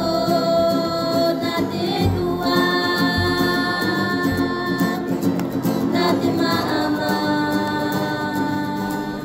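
Music: a group of voices singing together in long held notes, changing note about two and six seconds in.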